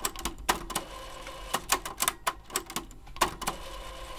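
Pioneer CT-P720WR cassette deck mechanism running with its drive motor whining steadily, while the mode gears and lever click sharply and irregularly, several clicks a second. The mechanism keeps stopping and will not hold fast-forward or rewind.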